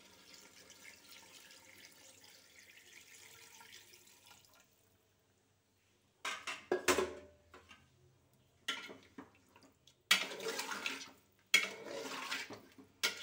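Water splashing into a hot pot of duck curry, and a spatula stirring and scraping around the pot in several loud bursts from about halfway through; faint before that.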